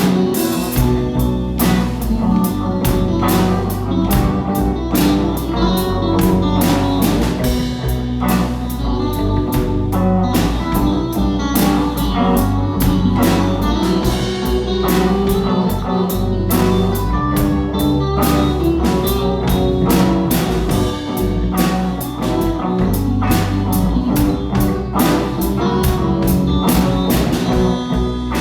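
A rock band playing: a drum kit keeps a steady beat under electric guitar and low sustained notes.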